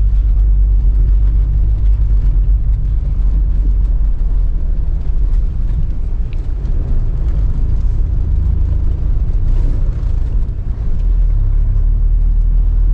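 UAZ Patriot SUV driving, with a steady, low engine and road rumble.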